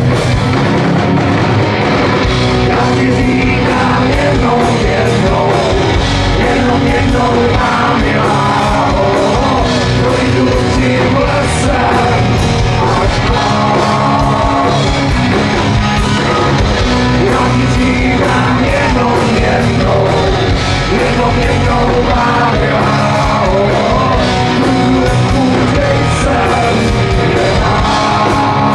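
Rock band playing live through a festival PA, heard from the crowd: electric guitars and drums, loud and continuous.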